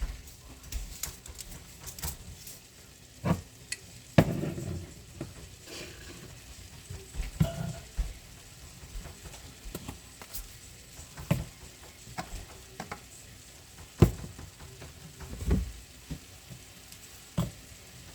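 Pancit being stir-fried in a pan: a cooking utensil scrapes and knocks against the pan at irregular intervals, with a faint sizzle underneath.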